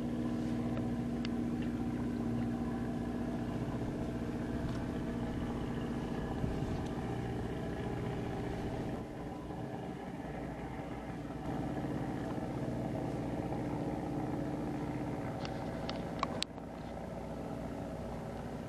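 A small engine running steadily, a low drone that dips slightly partway through and drops in level near the end, with a few sharp clicks just before the drop.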